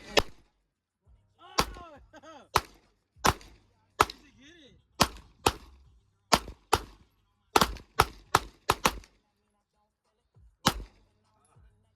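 Gunshots at target practice: about fifteen single shots fired one at a time at an uneven pace, with a quicker string of five or six around the middle and a last shot near the end.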